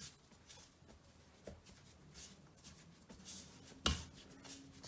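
Soft, scratchy rustling of chicken strips being tossed and pressed by hand in seasoned flour in a stainless steel bowl, dredging them to build up a crumbly coating. One sharp knock just before four seconds in.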